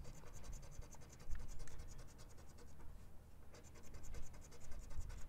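Rapid scratching strokes rubbing the coating off a paper lottery scratch-off ticket, in two runs with a short pause in the middle.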